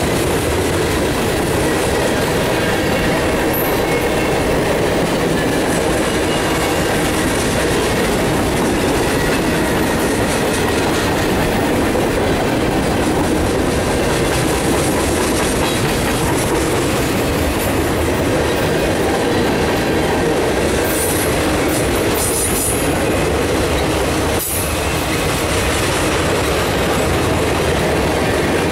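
Freight cars of a mixed freight train (boxcars, tank cars and gondolas) rolling steadily past, their steel wheels running on the rail. There are a few brief high-pitched wheel squeals about three quarters of the way through.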